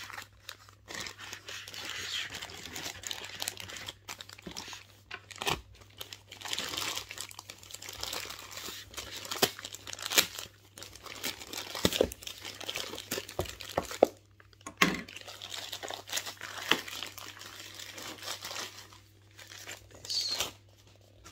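Paper and plastic packaging crinkling and tearing as a parcel is unwrapped by hand, with many sharp clicks and taps scattered through it.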